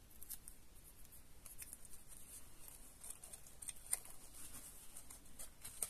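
Faint handling noise of paper crafting on a desk: light rustles and small scattered taps, with one clearer tap about four seconds in.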